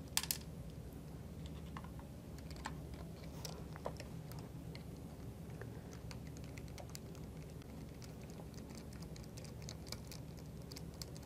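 Hex driver turning out the 4 mm Allen screws that hold a motor to a metal panel: faint, scattered small metal clicks and ticks, with a sharper clack just after the start and another about four seconds in.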